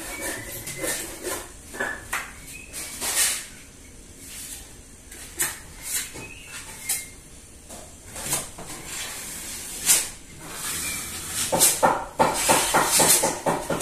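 Hand tools at work on the sink build: scattered knocks and scrapes, then a run of quick repeated strokes near the end.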